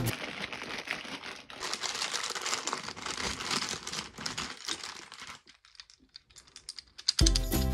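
Crinkling and rustling from hands handling a plastic surprise egg and its contents, thinning to a few faint clicks after about five seconds. Background music comes in near the end.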